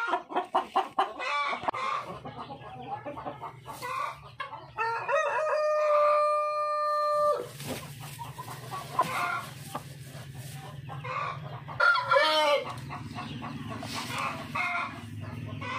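Chickens clucking in quick repeated notes, then a rooster crows once about five seconds in, one long held call that cuts off sharply, with more clucking calls near the end.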